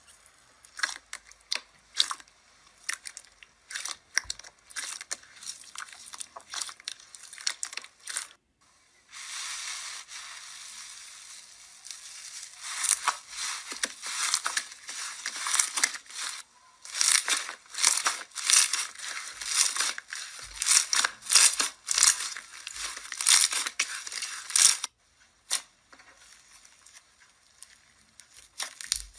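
Hands squeezing and kneading slime, making quick wet clicks, pops and crackles. A dense run of crackling fills the middle, and the clicks grow sparser and quieter near the end.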